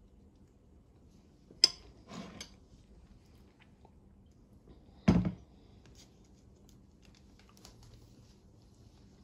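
A metal fork clicks sharply against a china plate, with a brief scrape just after. About five seconds in comes a louder dull thump, then faint paper rustling as the pages of a ring-binder folder are turned.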